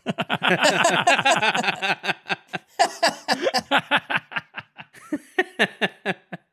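Men laughing hard: a dense, overlapping burst of quick rhythmic laughs that thins out and fades over the last couple of seconds, then stops suddenly.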